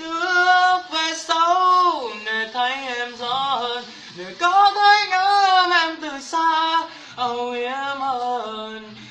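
A woman singing a melody unaccompanied, in several held phrases with short breaks between them.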